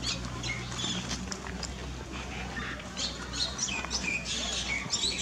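Short, high-pitched animal chirps and squeaks, many of them in quick succession, some sliding in pitch. A low steady hum sits underneath and fades out near the end.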